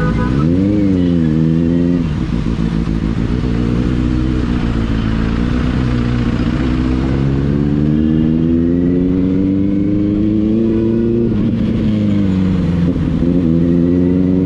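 Kawasaki Z900's inline-four engine under way. Its pitch climbs slowly as the bike accelerates through the gears, dropping sharply at shifts about two and eleven seconds in, with a quick rev up and down about a second in.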